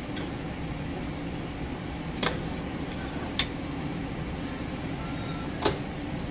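A steady fan-like hum, with three sharp knocks of kitchenware: a ceramic plate with a metal spoon set down on the counter, then a glass jar handled on a metal tray near the end.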